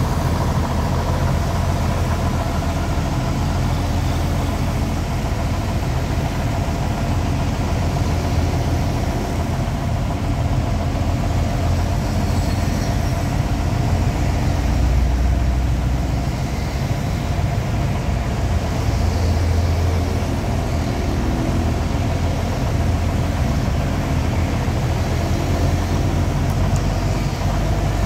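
Heavy diesel engine of a truck-mounted crane running steadily: a deep low rumble with a faint steady whine over it.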